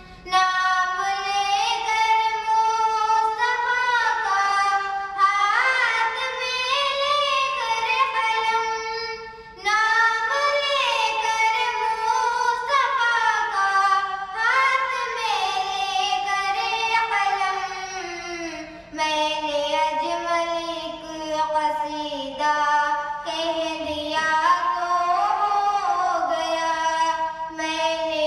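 A young girl singing a naat, an Urdu devotional song, into a handheld microphone in long, ornamented phrases, pausing briefly about ten seconds and nineteen seconds in.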